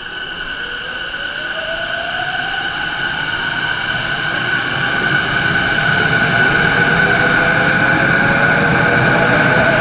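Electric commuter train accelerating, its inverter and traction motors giving a whine that rises in pitch over a steady high tone and grows louder throughout.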